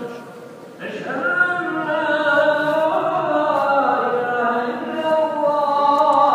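A man's voice chanting slowly in a melismatic religious style, holding long notes that bend in pitch; it comes in about a second in, after a brief quieter moment.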